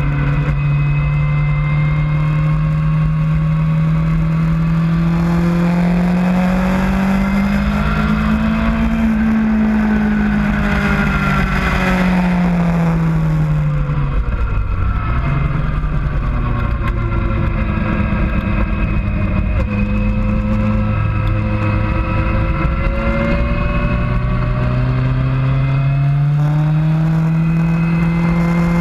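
Motorcycle engine heard from an onboard camera, running on track over steady wind rush. The engine note climbs to a peak about nine seconds in, drops away sharply around fourteen seconds, holds lower for a while, then rises again over the last few seconds.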